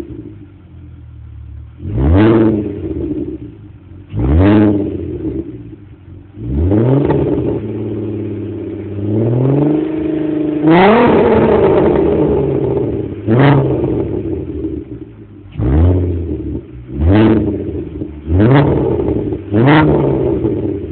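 VW Golf R32's VR6 engine through its stock exhaust with the exhaust flap open, revved from idle in short, sharp blips. About ten seconds in it climbs into one longer rev held high for a second or two, then a quicker run of blips follows near the end.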